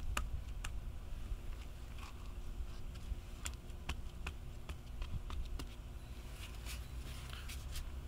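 Scattered, irregular light clicks of small stones and gravel ballast knocking together as a gloved hand works among them, over a low steady rumble.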